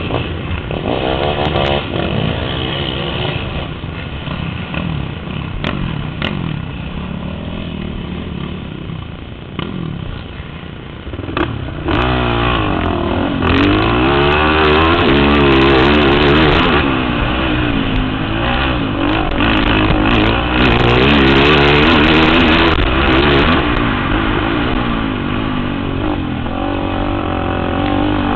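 Racing ATV (quad) engines running and revving at close range. For about the first twelve seconds the engine sound is quieter and uneven, then it steps up sharply and the rider's quad revs hard, the pitch rising and falling with each throttle change.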